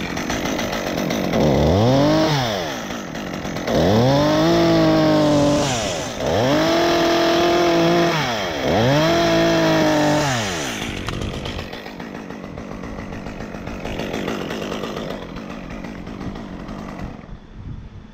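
Stihl top-handle chainsaw throttled up to full speed four times in a row, holding high revs for a second or two each time while cutting a felling notch, then dropping back to idle for several seconds.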